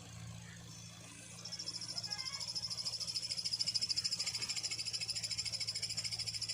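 Swift Dzire's clutch release bearing giving a rapid, high-pitched chirping with the clutch pedal pressed, starting about a second and a half in over the steady hum of the idling engine: the sign of a worn clutch release bearing.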